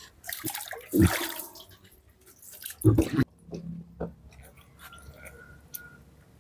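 Water splashing in short bursts, about a second in and again about three seconds in, as freshly plucked Muscovy ducks are washed by hand, with a few small wet clicks after.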